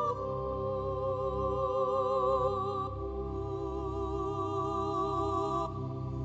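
Background music: sustained, wavering melodic notes with a low pulsing bass, the chords changing about three seconds in and again near the end.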